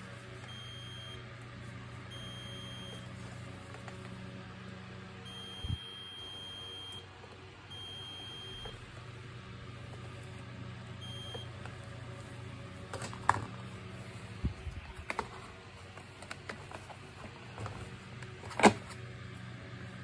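Digital multimeter's continuity buzzer giving five clean high beeps over the first dozen seconds, one lasting about a second, as the probes touch contacts on a vacuum cleaner's control board; each beep signals a closed circuit. Later come clicks and knocks of plastic parts being handled, the loudest a sharp knock near the end, over a steady low hum.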